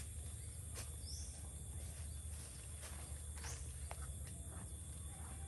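Steady high-pitched insect buzzing with a constant thin tone under it, and scattered crackles of dry leaf litter underfoot. A short rising bird chirp comes about a second in.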